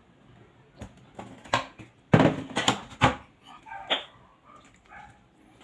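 Dog barking: a cluster of short, sharp barks about two seconds in, followed by a few fainter calls.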